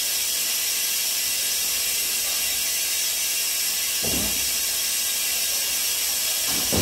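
AX-YDA automatic injection machine hissing steadily, with a brief low knock about four seconds in.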